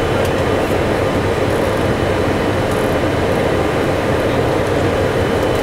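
Steady flight-deck noise inside a Boeing 747-400 freighter on approach: a constant rush of air over the cockpit with a low drone beneath it and a faint, steady high whine.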